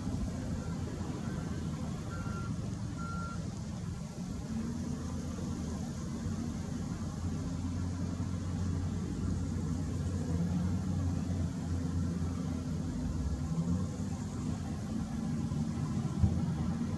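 Hitachi ZW310 wheel loader's diesel engine running under load, its pitch rising and falling as it works a sand pile. A few short beeps of a reversing alarm sound about two to three seconds in, and a single sharp knock comes near the end.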